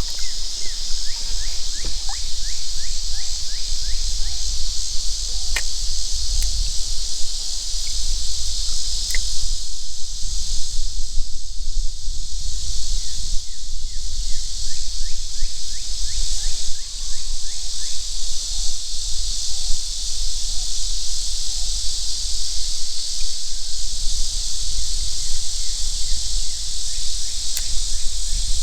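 Loud, dense insect chorus: a steady high-pitched buzz. Quick runs of short falling chirps come in twice, and there is a low rumble underneath.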